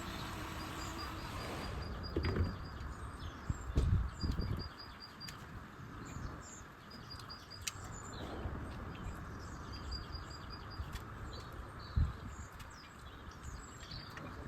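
Small birds chirping in short repeated trills, with a few dull knocks from work on the truck. A steady whirring noise cuts off about two seconds in.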